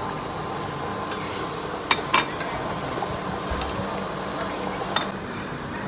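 A steel ladle stirring a coconut-milk curry in a stainless steel saucepan, knocking against the pan three times, over a steady low hum.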